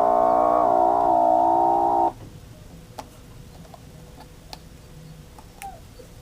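Circuit-bent lullaby sound chip from a stuffed elephant toy, giving a warbling electronic tone with many overtones that cuts off abruptly about two seconds in. A few faint clicks follow.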